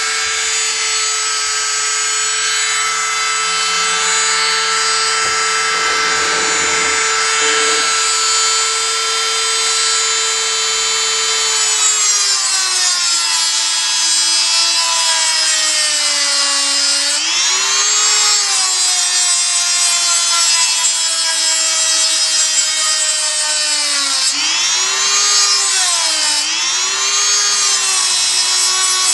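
Handheld rotary tool (an imitation Dremel) running with a high whine, grinding away plastic. The motor holds a steady pitch at first; from about the middle onward its pitch sags again and again as the bit bites in under load and then recovers.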